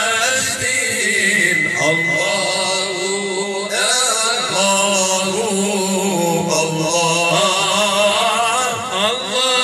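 Male voices chanting Moroccan Sufi praise song (amdah) through microphones and a PA system, the melody wavering and ornamented. About a second in, a steady high whistle holds for some three seconds.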